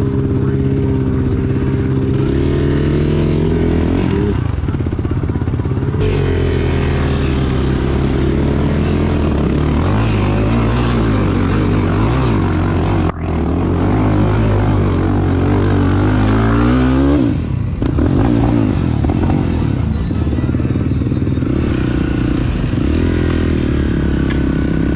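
Off-road vehicle engine running hard under throttle, its pitch rising and falling again and again as it is revved and eased off.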